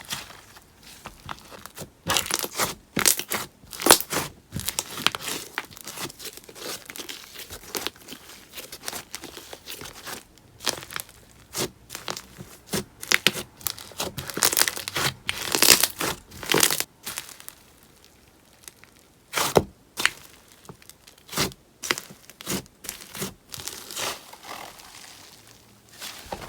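Slime being squeezed, stretched and pressed by hand, making irregular short, crisp, sticky crackling sounds. They come thick and fast for most of the time and thin out to a few separate pops near the end.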